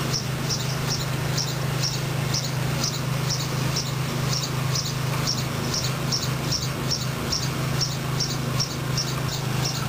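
An insect chirping in a steady rhythm, short high chirps about two to three a second, over a steady low hum.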